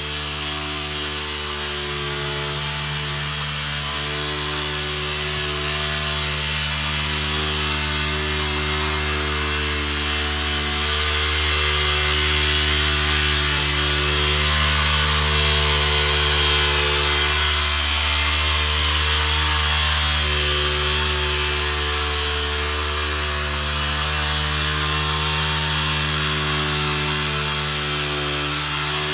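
Mortar plastering machine running continuously: a steady motor drone under a strong hiss, growing a little louder midway.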